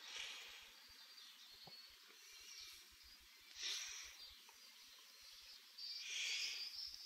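Faint, thin, tinny music leaking out of Sony MDR-NC31EM noise-cancelling earphones worn in the ears while a song plays through them at full volume, with no bass, only the treble. It swells louder a little past halfway and again near the end. This is the earphones' sound leakage.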